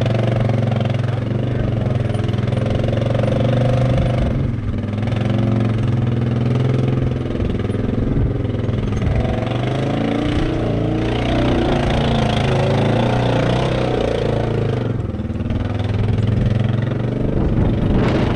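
Yamaha Wolverine side-by-side's engine running steadily as the UTV climbs steep slickrock, easing off briefly twice.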